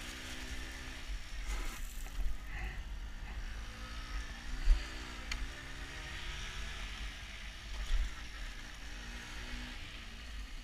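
Piaggio Ciao moped's small two-stroke engine running while ridden, its pitch rising and falling as the throttle is opened and eased, under heavy wind rumble on the microphone. Two sudden knocks stand out in the second half.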